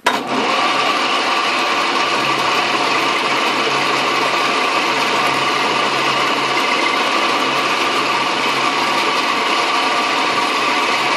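Small metal lathe running with a cutter in the spindle, milling a metal part clamped in the vise of a lathe milling attachment as the work is fed past it. It makes a loud, steady whirring with a hum under it during a light finishing pass taken to bring the part down to size.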